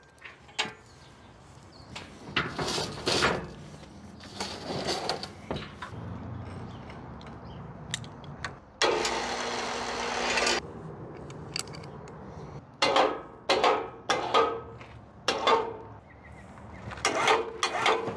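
Short knocks and rattles of equipment being handled, then an electric winch motor running steadily for about two seconds, followed by more clusters of knocks and clanks.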